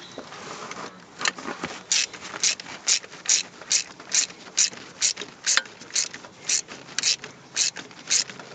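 Ratchet wrench clicking in quick short back-strokes, about two to three a second, starting about a second in, as a nut at the ignition coil mount of a 1960 Jeep engine is turned.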